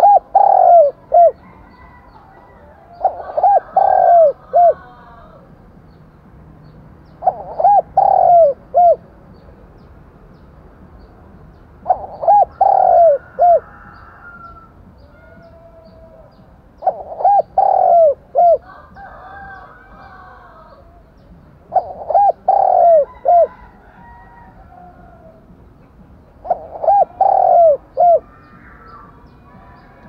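Spotted dove (cu gáy) lure bird cooing: a phrase of three or four coos, the middle ones loudest and the last one short, repeated about every five seconds, seven times in all. Fainter, higher bird calls come between several of the phrases. It is the lure dove's coo used to stir a newly caught dove to coo back.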